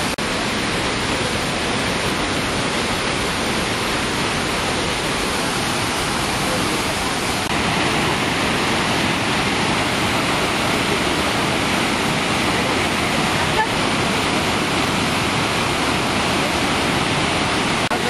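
Waterfall: a steady rush of water falling over rock, a little louder from about seven and a half seconds in.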